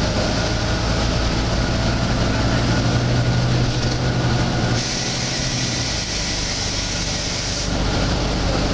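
Volvo B9TL bus's six-cylinder diesel engine running with a steady low drone; about five seconds in the drone drops and a high hiss starts, lasting about three seconds before cutting off. The hiss is one of the strange hissing noises this bus makes.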